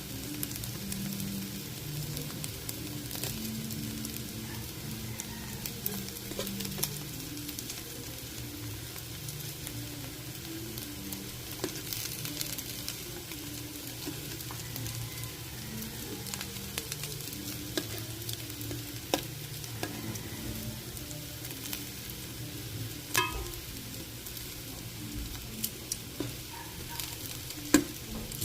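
Food frying in hot oil in a pan, a steady sizzle with scattered sharp clicks and taps of a utensil against the pan.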